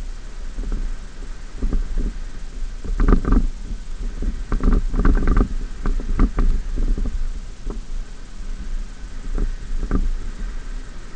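Ford F-150 pickup driving over soft sand: a low steady rumble with irregular knocks and rattles from bumps in the track, bunched between about three and six seconds in and again near the end.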